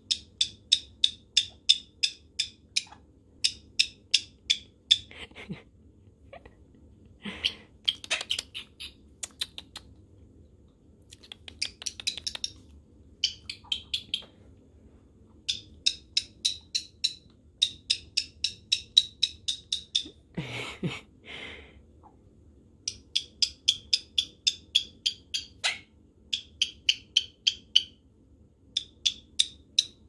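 White-bellied caique making runs of rapid, evenly spaced high-pitched clicking chirps, about five a second, in bursts of a few seconds with short pauses. A few louder, harsher sounds break in about a quarter and two-thirds of the way through.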